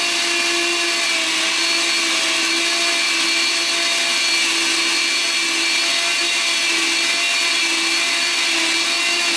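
Countertop blender running at one steady speed, blending a thick liquid milkshake, a steady motor whine over the churning of the mix.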